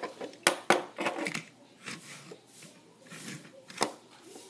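A toy bullet train handled on a table: a few sharp plastic clicks and knocks as it is moved and turned by hand, two close together about half a second in and another near the end, with soft rubbing in between.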